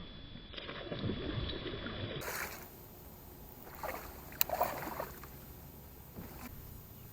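Kayak paddle strokes in the water: a few short splashes, with a single sharp knock about four seconds in.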